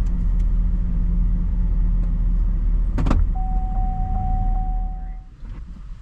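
Car engine and road rumble heard from inside the cabin, with a sharp click about three seconds in, followed by a steady electronic warning tone for about two seconds. Near the end the rumble drops away.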